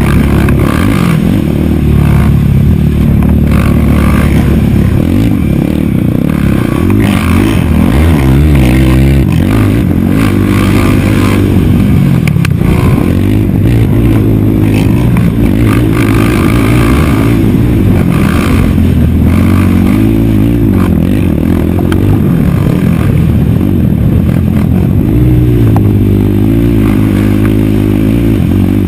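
Race quad's engine heard onboard at race pace, revving up and down continuously as the rider accelerates, shifts and backs off.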